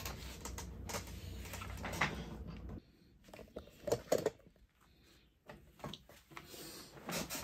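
Handling noise: a canvas purse and things on a worktable being moved and set down, with small knocks and rustles. A low hum underneath stops suddenly about three seconds in.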